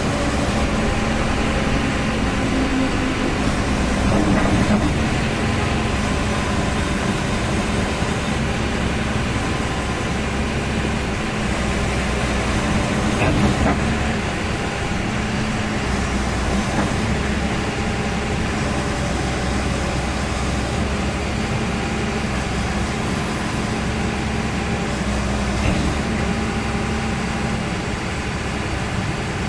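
The diesel engine of a JCB JS215 LC tracked excavator running steadily with an even low hum while the machine works its way down off a truck trailer.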